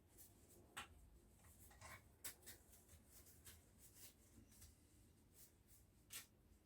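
Near silence, with a few faint, short clicks and scrapes of small objects being handled, the loudest about a second in, two seconds in and near the end.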